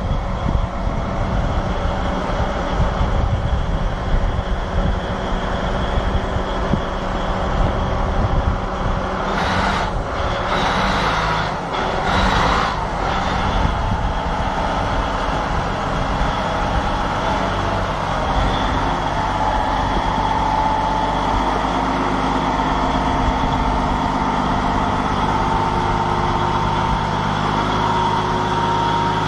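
Diesel engine of a large Volvo wheel loader running steadily under load as the machine creeps up a loading ramp, with a steady whine over the engine note. A few short rushes of noise come about ten seconds in.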